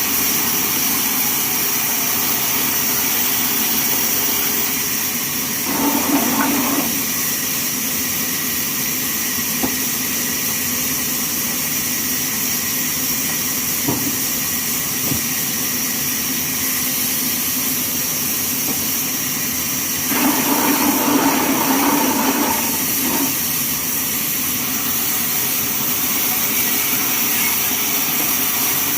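Bandsaw mill running steadily with a high-pitched whine and hiss. It gets louder twice, for about a second some six seconds in and for about three seconds some twenty seconds in, with a sharp knock between them.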